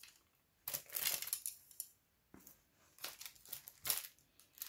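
Handling sounds: a wooden folding ruler clicking as it is opened out and laid along a canvas, with rustling of the canvas's clear plastic film. Several short bursts of clicks and crinkling come in two clusters, about a second in and again around the three-second mark.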